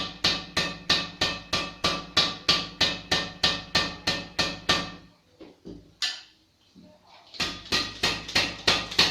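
Badminton racket strings, Yonex BG6 strung at 27 lbs, struck in a steady series at about three strikes a second, each giving a sharp, short ringing ping. The strikes stop for about two seconds midway, then resume.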